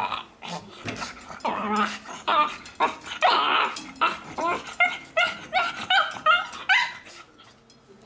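Pug making its "monkey noises": a few drawn-out whining calls, then a quick run of high, pitched yelping calls, about three a second, that stop about seven seconds in.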